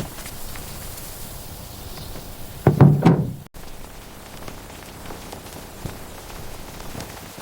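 A quick cluster of knocks and thuds about three seconds in, over a steady faint hiss, cut off abruptly.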